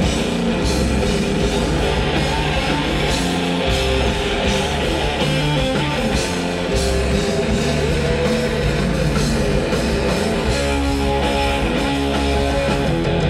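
A live rock band plays loud and without a break: electric guitar, bass guitar and drums.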